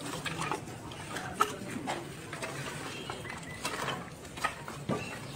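Scattered knocks and clatters of wooden logs being handled and stacked on a cremation pyre. The sharpest comes about a second and a half in, and a couple more come near the end.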